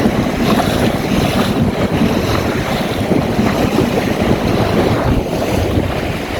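Strong wind buffeting the microphone over water rushing and splashing against the hull of a small open sailboat sailing fast.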